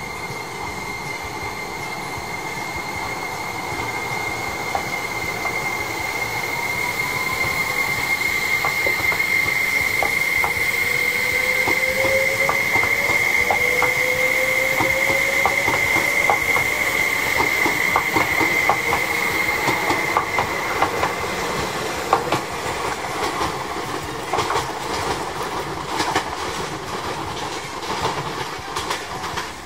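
Tobu N100 series Spacia X electric train moving off past the platform. Its traction motors whine, rising in pitch as it gathers speed, over a steady high whine, and the wheels click over the rail joints; the sound grows louder, then fades as the train draws away.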